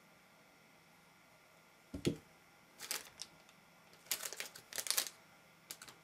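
A soft thump about two seconds in, then short bursts of crinkling and rustling as a plastic zip-lock bag and a paper padded envelope are handled on a table.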